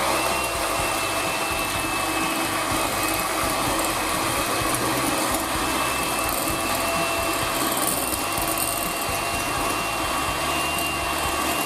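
Electric hand mixer running steadily, its beaters whisking egg whites into a thick foam in a glass bowl. A steady motor whine that comes up to pitch in the first moment, then holds.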